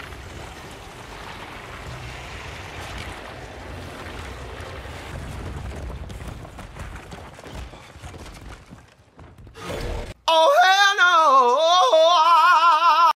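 A dense, noisy rumble of battle-scene soundtrack for about ten seconds. Then, after a brief drop, a loud pitched voice with wobbling pitch cuts in suddenly and carries to the end.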